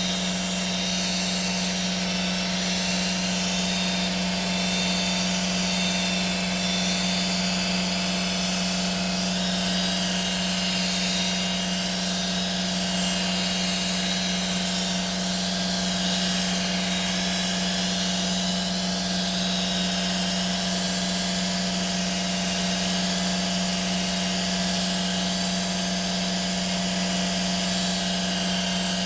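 A handheld electric power tool running steadily at constant speed, a strong even hum with a fainter high whine and hiss over it, never changing pitch or stopping.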